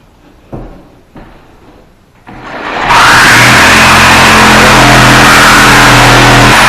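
A few light knocks, then a power saw fitted with a metal-cutting blade starts about two seconds in and runs loud and steady, cutting through the steel pocket door track.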